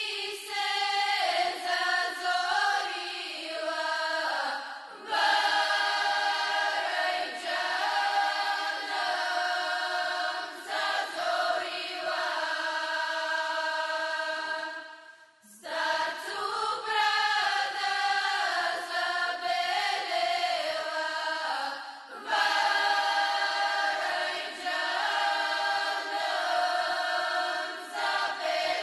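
A group of women's voices singing a Bulgarian folk song unaccompanied, in long held phrases, with a brief pause about fifteen seconds in.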